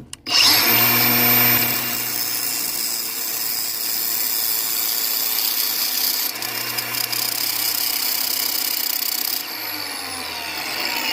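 Angle grinder starting up and grinding the end of a steel bolt that is spun in a drill, shaping it into a detent tool. It runs with a steady high whine; about nine and a half seconds in the whine drops away and the running goes on lower.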